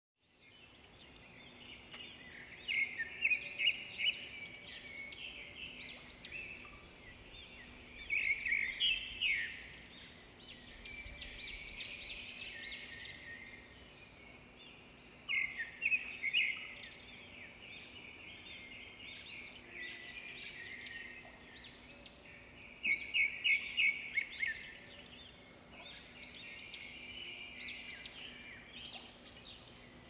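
Birds singing and calling together, with one bird repeating a loud phrase of rapid notes four times, about every six to seven seconds, over softer twittering from other birds in between.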